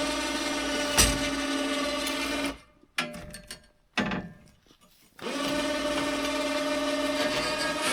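A small electric motor, like a power tool's, running at a steady pitch; it stops about two and a half seconds in, there are a couple of clicks, then it starts up again about five seconds in and runs on.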